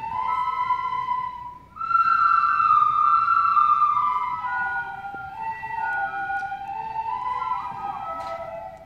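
A group of children playing a slow melody in unison on soprano recorders, in held notes. The playing breaks off briefly about one and a half seconds in, then resumes with higher, louder notes, and drops back to lower notes for the rest.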